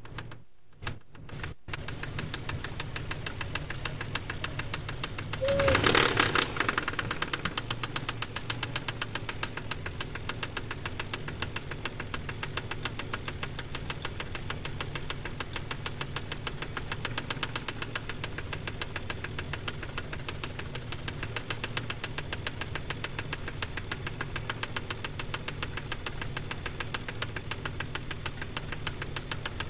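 Mazda KLZE 2.5-litre V6 running with a steady, evenly spaced knock, the sign of a spun crankshaft bearing on cylinder No. 6. The engine is revved once, briefly and loudly, about six seconds in, then settles back with the knock still there.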